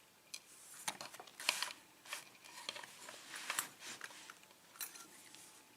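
Light, irregular metallic clicks and short scrapes of small tools working the upper pins and springs out of a disassembled 6-pin Euro cylinder lock.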